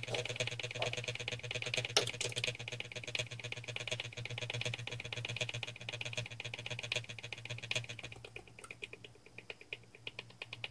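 Homemade magnet motor running on the bench: its rotor and coil assembly give a fast, even run of clicks over a steady low hum. The clicking grows fainter from about eight seconds in.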